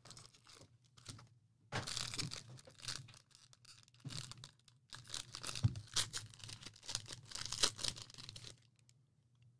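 Foil wrapper of a 2020 Playbook football card pack being torn open and crinkled by hand, in a run of uneven tearing and crinkling bursts that stops near the end.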